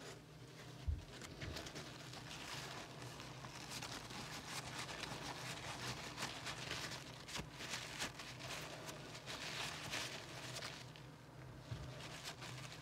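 Cloth rag rubbing and scrubbing lapping compound out of an aluminium motorcycle cylinder head's valve seat: a dry, scratchy rustle of many quick wiping strokes, with a short knock about a second in.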